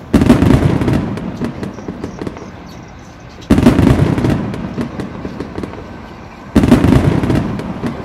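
Fireworks: three large aerial shell bursts about three seconds apart, each a sudden bang followed by crackling that fades away.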